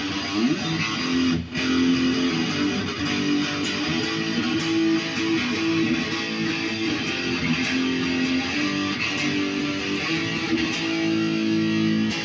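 Jay Turser JT-50 Custom SG electric guitar played in standard tuning: sustained chords and notes, with a brief break about a second and a half in.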